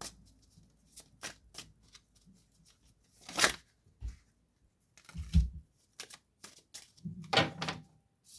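Tarot cards being shuffled and handled: a run of quick, light card clicks, with three louder card swishes about three and a half, five and a half and seven and a half seconds in, the middle one with a soft thump on the table.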